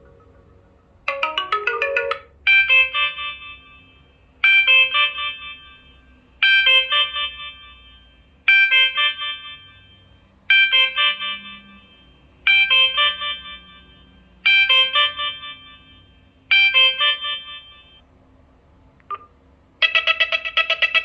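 Sonim XP3 phone ringtones playing. One ringtone is a short phrase of a few notes that repeats every two seconds, eight times. After a brief blip near the end, a different ringtone with fast repeating notes begins.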